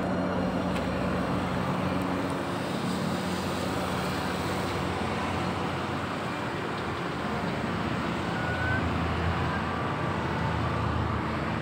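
Steady road traffic noise from vehicles passing on a busy main road.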